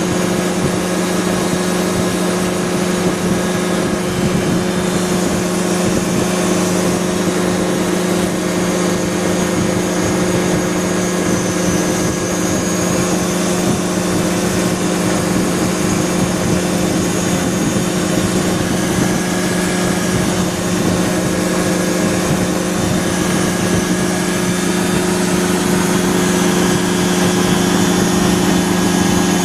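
ASAP Beaver SS ultralight aircraft's engine and propeller running steadily in flight, a continuous drone that holds one pitch throughout.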